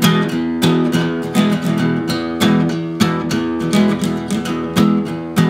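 Acoustic guitar strummed in a steady rhythm, about two strong strums a second with lighter strokes between, chords ringing.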